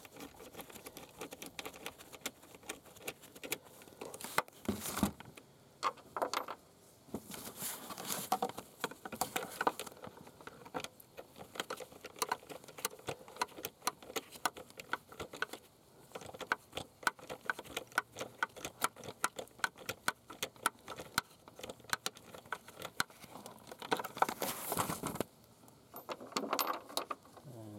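Socket ratchet clicking in quick runs as two 8 mm bolts are backed out of a purge valve's mounting bracket, broken by a few louder rustles and knocks of handling.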